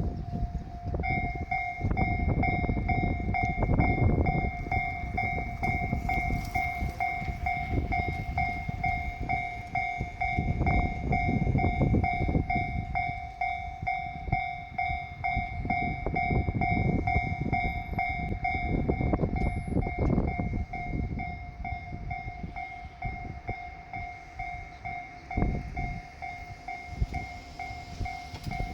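Level crossing warning alarm starts about a second in and keeps up a rapid, steady electronic clanging. Under it a diesel multiple unit rumbles over the crossing, its wheels clattering on the rail joints in waves.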